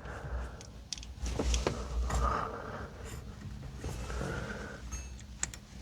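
Faint scattered clicks and light knocks of a steering-wheel quick-release being handled and slid onto its hub, with a low rumble underneath.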